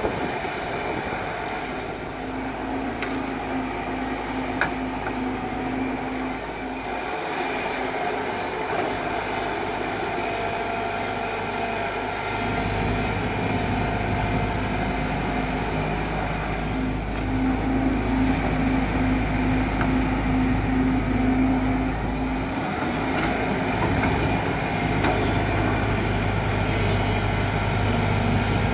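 JCB tracked excavator's diesel engine and hydraulics running steadily as it digs, with a steady hum; the engine note grows deeper and louder about 12 seconds in and again a few seconds later as the arm works under load.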